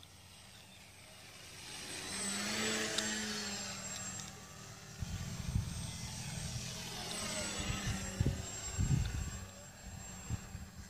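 Electric motor and propeller of a Parkzone T-28 Trojan RC model plane flying low passes. It swells and drops in pitch as it goes by about two to three seconds in, then passes again around seven to eight seconds. Low, uneven thumps of wind on the microphone run through the second half.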